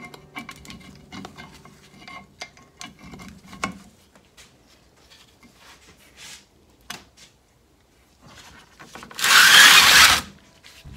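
Light metal clicks and taps as brake parts are fitted by hand into a CASE 580C loader's cast-iron brake housing. Near the end comes a loud scrape about a second long as the heavy housing is shifted on the workbench.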